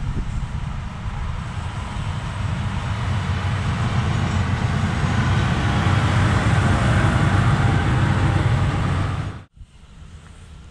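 Diesel shunting locomotive's engine running as it approaches and passes close by, the engine hum and running noise growing louder. Cuts off suddenly about nine and a half seconds in, leaving faint wind noise.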